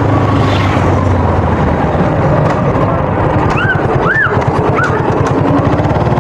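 Suzuki Gixxer motorcycle's single-cylinder engine running steadily with an even low pulsing. About halfway through, three short high chirps that rise and fall are heard over it.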